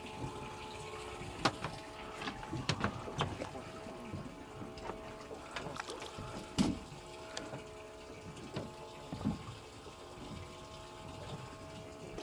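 Water lapping against the hull of a drifting boat over a steady motor hum, with a few short knocks and splashes, the sharpest about a second and a half in and again midway.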